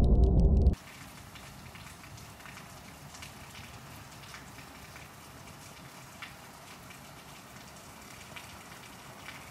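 The loud, bass-heavy end of an intro track cuts off under a second in. Then rain falls steadily: a soft, even hiss with scattered small taps.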